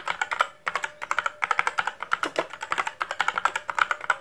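Computer keyboard typing sound effect: quick, irregular runs of key clicks, with a brief pause about half a second in.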